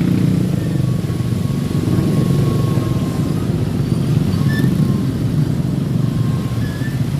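Steady rumble of road traffic in a jam, with motorcycle and car engines running close by.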